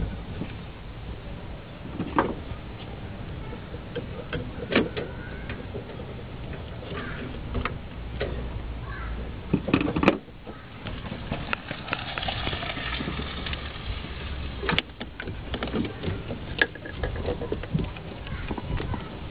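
Scattered clicks and knocks of hands handling rubber vacuum hoses and fittings on the throttle body of a Nissan VG33E V6, with the loudest cluster about halfway through, over a steady low rumble.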